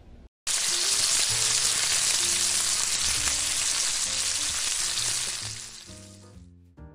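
Bacon sizzling in a frying pan: a steady hiss that starts suddenly about half a second in and fades out near the end, with faint low music notes underneath.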